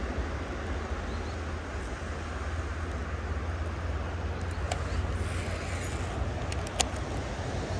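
Steady wind buffeting the microphone, a low fluttering rumble under a hiss, broken by two sharp clicks about five and seven seconds in, the second the louder.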